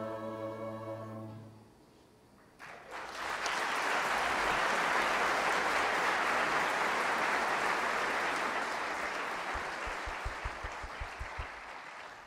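The last held chord of the music fades out. After a brief hush, audience applause starts about two and a half seconds in, holds steady, and tapers off near the end with a few low thumps.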